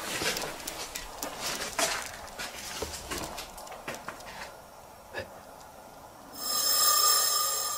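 Rustling and light clicks of handling and movement, then about six seconds in a loud whirring whine lasting about a second and a half, the motor of a Polaroid instant camera ejecting its print.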